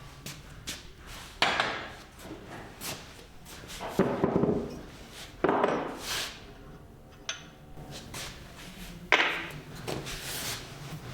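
Hand work on a small rusty metal vise: four loud separate knocks, each with a short scraping tail, a second or more apart, and softer clinks and knocks between them.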